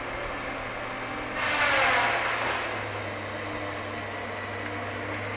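Tree-clearing machine running steadily with a low engine drone. About a second and a half in, a louder rushing surge lasts about a second, then it settles back to the steady drone.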